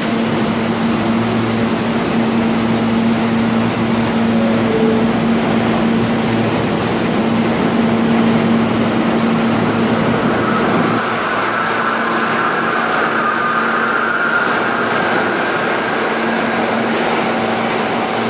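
R160 subway train standing at an underground platform with a steady low hum, then starting to pull out: about ten seconds in a high whine from its traction motors sets in and carries on as it gathers speed.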